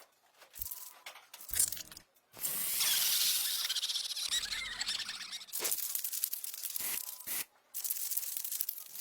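Rough scratching and rustling noise in bursts, the longest lasting about three seconds in the middle, with a few short clicks early on.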